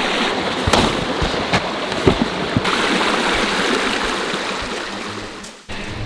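Shallow river rushing over a gravel and rock riffle, a steady sound of running water that fades away near the end.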